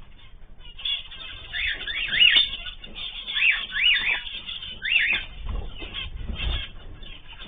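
Cage birds calling: short chirps that rise and fall in pitch, coming in clusters of two or three. A low rumble comes in a little past the middle.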